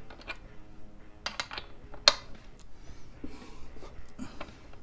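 Metal clicks and clanks from a breaker bar and socket working on a motorcycle's rear axle nut as it is loosened, with one sharp, louder clank about two seconds in.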